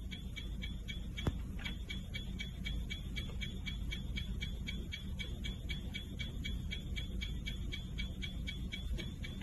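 Steam's screenshot shutter sound firing over and over, about four clicks a second, as a cat's paw holds down the screenshot key on the keyboard. One louder click stands out a little over a second in.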